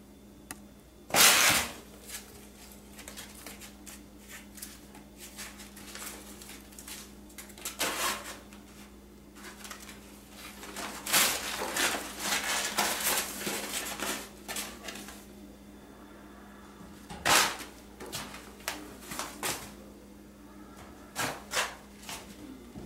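A cat clawing, biting and pulling at a thin shower curtain: irregular bursts of rustling and tearing, the loudest about a second in, a longer busy spell in the middle and another sharp burst later. A steady low hum runs underneath.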